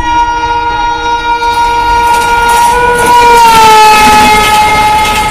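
An Indian Railways electric locomotive horn sounds one long, loud blast over the train's running noise. About three to four seconds in, its pitch drops slightly and holds lower, as the locomotive passes.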